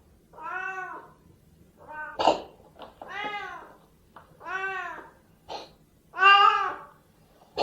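Siamese cat meowing repeatedly: about five drawn-out meows that rise and fall in pitch, the last one the loudest, with a short harsh cough about two seconds in.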